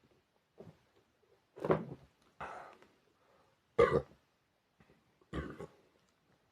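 A person burping repeatedly: a faint burp, then four louder short burps about a second apart, the loudest about four seconds in.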